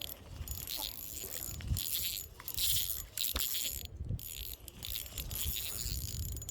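Fishing reel being cranked to bring in a hooked fish: a light metallic rattling in short bursts with brief pauses and a few clicks, over low rumble from handling near the microphone.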